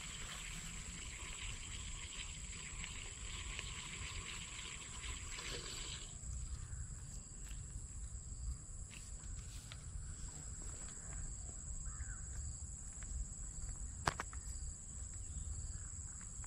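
Insects chirring in a dense, steady chorus that cuts off abruptly about six seconds in, over a thin high insect whine and a low rumble. One sharp click comes near the end.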